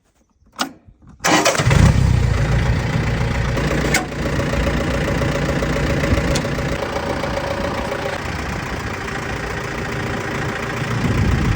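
Woodland Mills HM126 sawmill's gasoline engine starting about a second in, then running steadily, with a sharp click about four seconds in.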